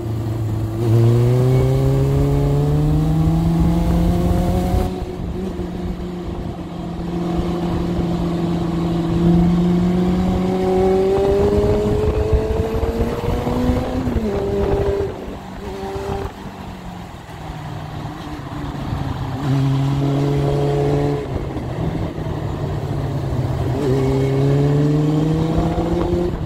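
Yamaha XJR motorcycle engine under way, pulling up in pitch at first and then holding steady. About halfway through the revs rise briefly, then break off and drop as the throttle is closed for a bend. The engine runs lower for a few seconds, then climbs again near the end, with wind buffeting the microphone throughout.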